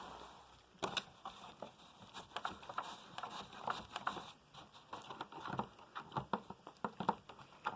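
A Hoover Tempo upright vacuum's steady running noise fades away at the start. Then come many irregular light plastic clicks and taps as the brush roll and head are handled and checked for play.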